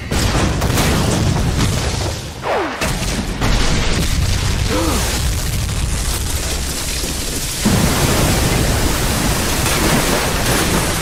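Animated battle sound effects: a loud, continuous rumble of crashing rock and surging water. There are short gliding whooshes about two and a half and five seconds in, and the rumble grows louder at about three and a half seconds and again near eight seconds.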